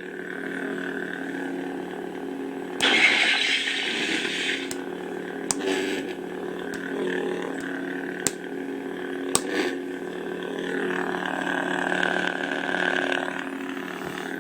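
Lightsaber sound-font hum from a Crystal Shard V1 soundboard through a tiny speaker: a steady electric buzz, swelling twice into longer swing sweeps, with three sharp clicks in between.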